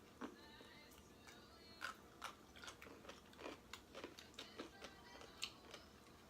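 Pickled radish being bitten and chewed: a run of faint, short crunches that come more often from about two seconds in.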